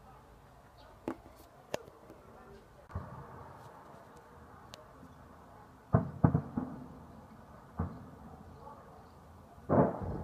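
Distant gunfire and explosions during a battle: about eight irregular sharp shots and blasts, each followed by an echo, the loudest a cluster around six seconds in and one near the end.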